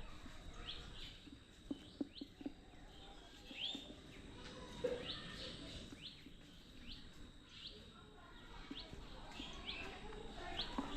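Birds chirping: short rising calls repeated about one or two times a second, over faint outdoor background noise, with a few light clicks about two seconds in.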